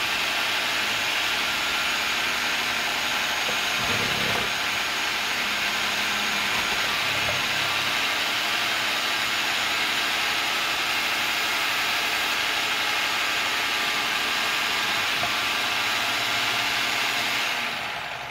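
Electric food processor running steadily as carrots and celery are pushed through its feed tube and shredded. Near the end it is switched off and the motor winds down.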